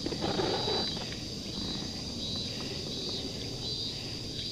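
Insects chirring steadily at a high pitch, with a faint regular pulsing in the chorus. Underneath is a low, rough rumble of noise, and there is a short louder rustle in the first second.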